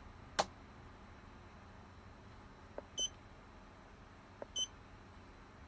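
Two short, high electronic beeps from a handheld FCAR F506 truck scan tool as its keypad is pressed, about a second and a half apart, each just after a faint button click. A single sharp click comes about half a second in.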